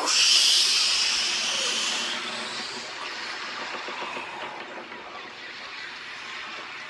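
An ocean wave breaking and washing away: a rushing hiss, loudest at the start and fading over about three seconds into a faint steady wash.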